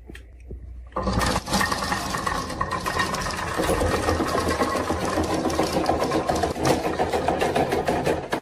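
Marble run and toy vehicles in motion: a dense, steady mechanical rattle of many quick clicks over a faint running hum, starting suddenly about a second in.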